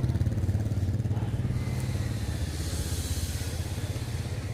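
Motorbike engine running with a fast, even beat, slowly getting quieter.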